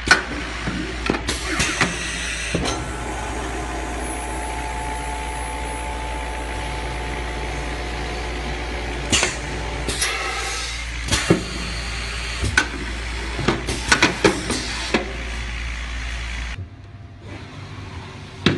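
Automated vacuum blood collection tube assembly machinery running with a steady hum, with irregular mechanical clicks and clacks as parts and tube trays move. A faint whine sounds for a few seconds in the middle, and near the end the hum drops away and the sound becomes quieter.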